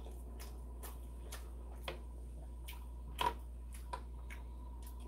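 Eating sounds: faint, scattered clicks and ticks of a metal spoon and mouth while eating stew, a couple a second, with one slightly louder knock a little over three seconds in.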